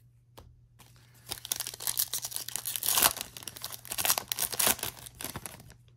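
Foil wrapper of a trading-card pack being torn open by hand, a run of crinkling and ripping lasting about four seconds, loudest about midway.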